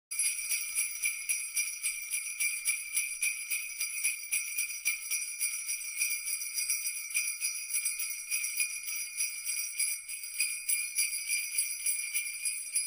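Jingle bells shaken in a steady quick rhythm, about four shakes a second, a continuous bright jingling.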